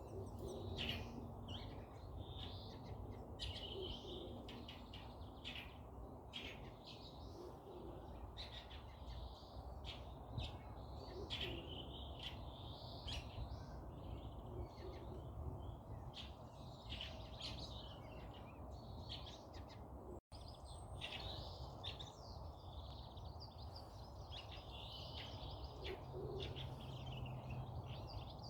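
Forest birds chirping and calling, many short overlapping chirps, over a steady low background rumble. The sound cuts out for an instant about twenty seconds in.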